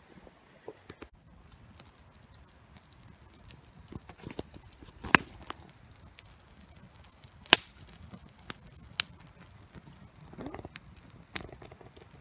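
Wood campfire crackling, with a pine-pitch stick burning in it; scattered sharp pops, two of them loud in the middle.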